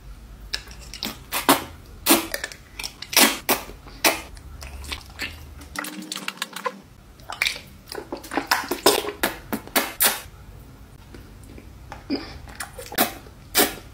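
Close-up eating sounds of a person slurping and chewing saucy instant noodles: irregular wet mouth smacks and clicks, a few a second.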